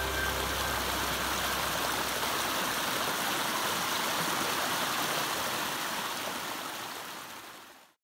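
Shallow mountain stream rushing over mossy rocks in a steady, even rush of water that fades out over the last two seconds.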